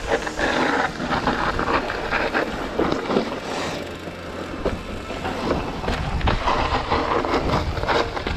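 Mountain bike descending a dirt singletrack: tyres rolling over dirt and dry leaves, with the bike rattling and knocking over roots and rocks in a steady stream of short clatters.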